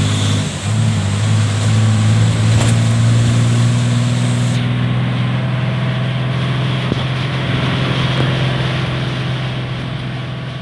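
Steady low engine drone of a vehicle, under a constant hiss of heavy rain and wind.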